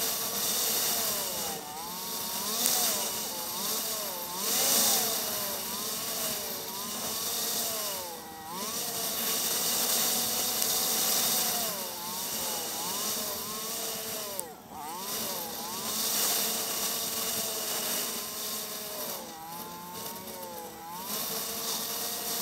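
Motorcycle engine under way, its revs rising and falling with the throttle, dropping briefly twice as the throttle is closed, over a steady rush of wind and road noise.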